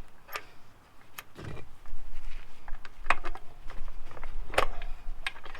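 Scattered metal clicks and knocks, about seven in all with one duller thud about one and a half seconds in, as the rear wheel spindle of an enduro motorbike is worked out through the hub and swingarm.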